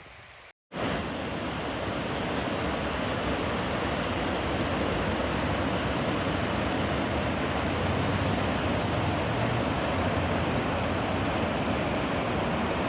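Waterfall, likely Firehole Falls, rushing up close as a steady, loud roar of falling water. It starts abruptly after a short break less than a second in.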